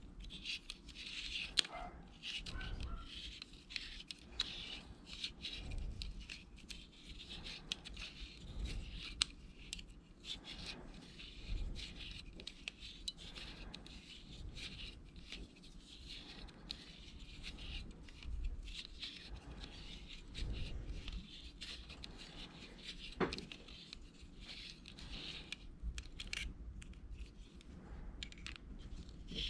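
Flat driver of a Leatherman multi-tool scraping and clicking in the battery-cap slot of a Trijicon SRO red dot sight as the cap is worked: a quiet, irregular run of small scratchy scrapes and ticks.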